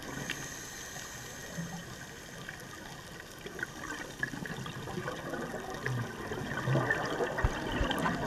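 Underwater sound of a scuba diver's regulator exhaust, a gurgling rush of exhaled bubbles that grows louder in the second half, over a steady hiss.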